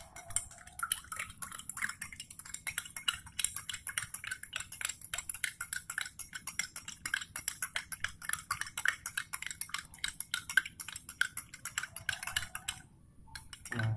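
A metal spoon stirring spinach-leaf juice in a drinking glass, clinking rapidly and steadily against the glass as vanilla powder is mixed in. The clinking stops about a second before the end.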